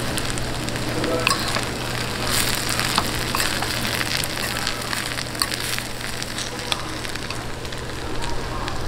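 Food sizzling and crackling on high heat, a steady hiss dotted with small pops, over a steady low hum.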